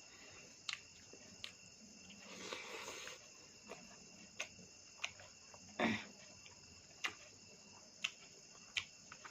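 Sharp wet clicks and smacks of someone chewing and eating, spaced irregularly, the loudest about six seconds in, over a steady high trilling of crickets.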